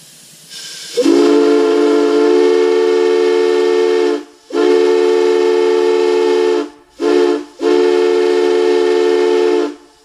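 A 6-inch Schäffer & Budenberg chime whistle, the size used on old steam locomotives, blown on compressed air. It sounds a train-like chord of several tones together in four blasts: two long, a short one, then another long one. A hiss of air comes just before the first blast.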